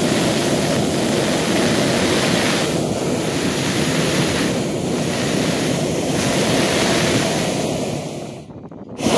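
Wind buffeting the microphone: a loud, steady rushing with no clear pitch, dropping out briefly near the end.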